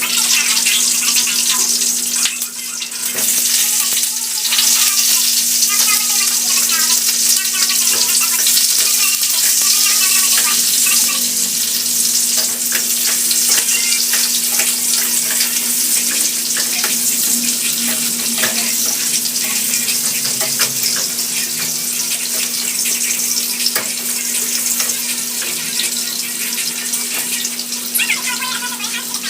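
Food sizzling in hot oil in a pan, a steady hiss with a few small clicks, over a low steady hum.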